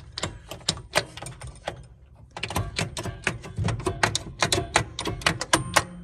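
The Pile Driver coin-op game's mechanism clicking: a few scattered clicks, then from about two seconds in a fast, steady run of mechanical clicks, several a second, as the machine cycles after a scoring pin is struck, leading to a nickel payout.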